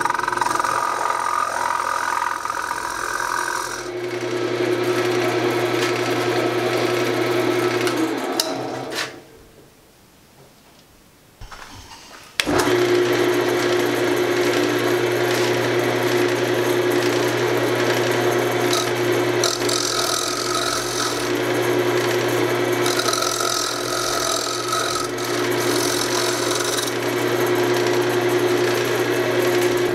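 Wood lathe running with a steady motor hum while a turning tool cuts and scrapes the spinning zebrawood horn blank. About nine seconds in the sound drops to a faint hush for about three seconds, then the lathe and cutting come back at once.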